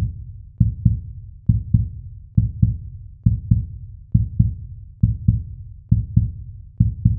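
Heartbeat sound effect: pairs of low thumps, lub-dub, repeating about every 0.9 seconds.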